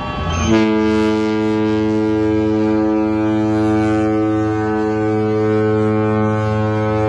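Cruise ship horn sounding one long, steady blast, starting about half a second in and holding at an unchanging pitch.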